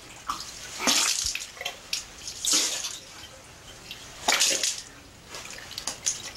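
A woman retching and vomiting: several gushing, splashing heaves of liquid about a second and a half apart.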